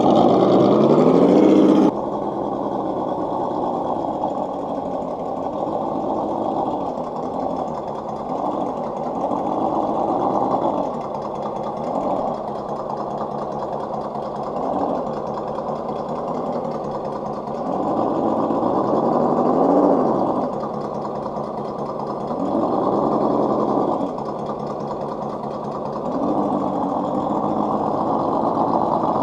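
Electric motor and gear drive of a scale RC crawler truck whining as it climbs over roots, the pitch rising and falling again and again with short pushes of the throttle.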